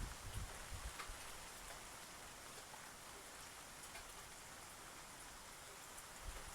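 Light rain falling: a steady, faint hiss with a few scattered drop ticks.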